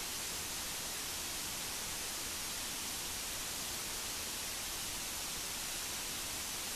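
Steady, even hiss of rushing water, strongest in the high tones.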